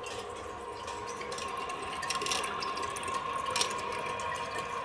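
Water running into a 1961 Briggs toilet tank through its ballcock fill valve: a steady hiss with a faint whistle-like tone, and a couple of light knocks partway through.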